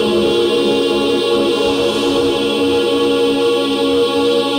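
Ambient drone music played on Buchla and Eurorack modular synthesizers: several sustained tones layered together, changing slowly in pitch, with no beat.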